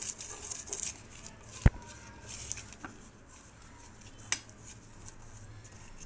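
Butter paper crinkling and brushing inside a steel cake tin as it is greased with oil, with one sharp knock against the tin about a second and a half in and a lighter click a little after four seconds.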